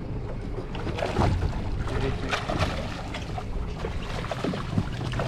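Sounds aboard a small fishing boat at sea: a steady low rumble with wind and water, and scattered small knocks and clicks on deck.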